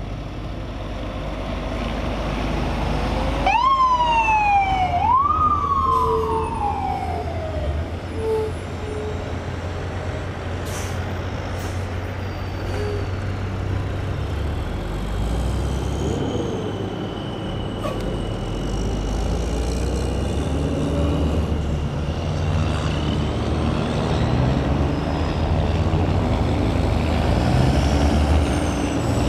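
An emergency vehicle's siren gives two short whoops, each rising and then sliding down, about four seconds in. A steady low rumble of vehicle engines and traffic runs underneath.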